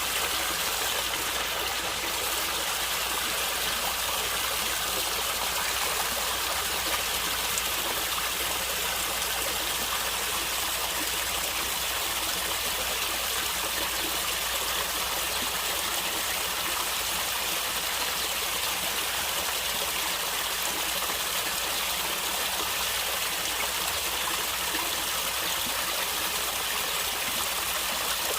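A stream of water running and gurgling, a steady rushing hiss with no breaks.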